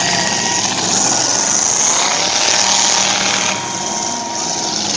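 Demolition derby cars' engines running and revving together in a loud, raspy, rattling din.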